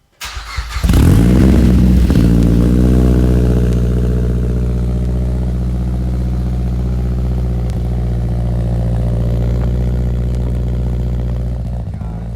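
Mazdaspeed3's turbocharged 2.3-litre four-cylinder cold-starting through a catless downpipe and a nearly straight-piped 3-inch exhaust: a brief crank, it catches and flares loud, then settles into a steady high idle.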